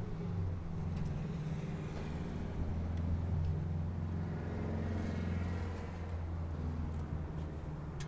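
A vehicle engine idling steadily, a low even hum, with a few faint light clicks.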